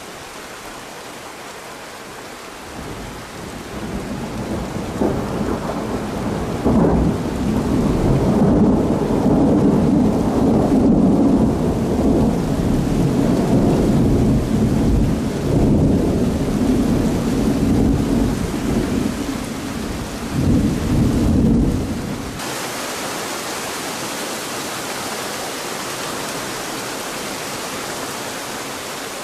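Long roll of thunder over steady heavy rain: the rumble builds over a few seconds, cracks sharply twice, then rumbles loudly for about fifteen seconds before stopping abruptly about three-quarters of the way in, leaving the hiss of the rain.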